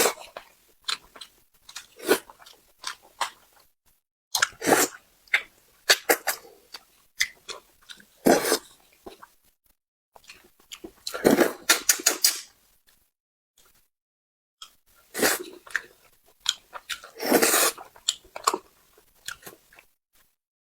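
Close-miked eating of spicy braised carp: wet chewing, biting and mouth clicks in irregular bursts, with a few longer, louder stretches around the middle and near the end.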